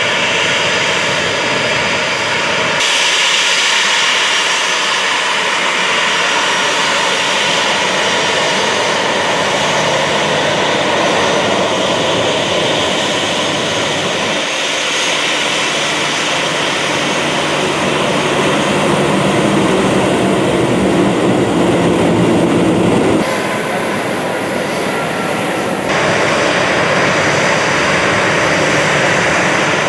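Boeing 737-800 jet engines running at taxi power, a steady loud whine and rush. The tone and level jump abruptly several times.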